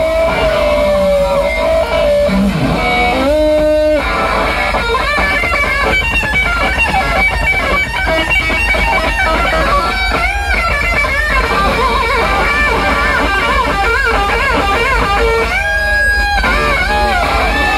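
Stratocaster-style electric guitar soloing: long held notes at first, then from about five seconds in fast runs full of string bends.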